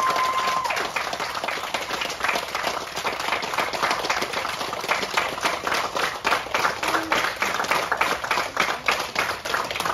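A small crowd applauding: many hands clapping steadily and unevenly.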